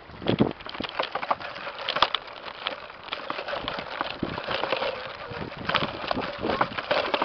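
Irregular crunching, rustling and clicking from footsteps on dry dirt and straw, mixed with handling noise from the camera rubbing against a knit sleeve.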